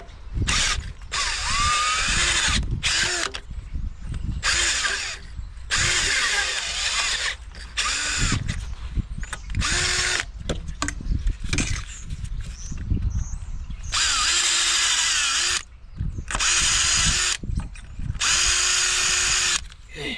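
Snap-on cordless power tool run in a string of short bursts, each from half a second to about two seconds long, its motor whine rising as it starts and falling away as it stops.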